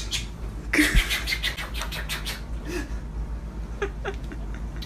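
A person imitating machine-gun fire with their mouth: a rapid string of sharp bursts starting about a second in and lasting about a second and a half, then a few scattered bursts near the end.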